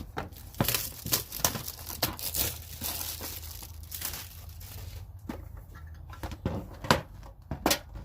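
Plastic packaging being crinkled and torn open by hand. The crackling is dense for the first few seconds, then thins to scattered crinkles.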